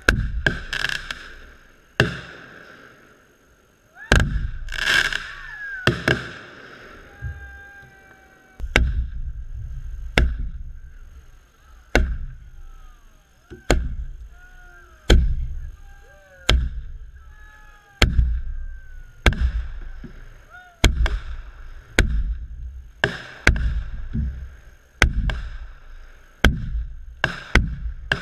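Aerial fireworks shells launching and bursting in quick succession, about one sharp boom a second, each trailing off in a low rumble. There are hissing, crackling stretches near the start and a few short whistling glides in the middle.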